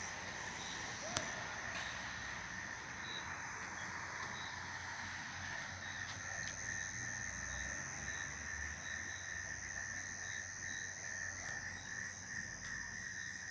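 Night insects trilling steadily in a high-pitched chorus, with faint repeated chirps over it. A single sharp click about a second in.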